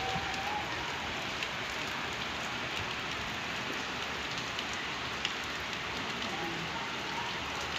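Heavy rain falling steadily on the ground outside.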